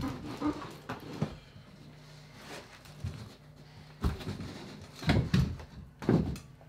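Plasterboard sheet knocking and bumping against the timber wall framing as it is pushed into place by hand: a few dull knocks at the start and about a second in, then a quieter stretch with a faint steady hum, then a cluster of knocks near the end.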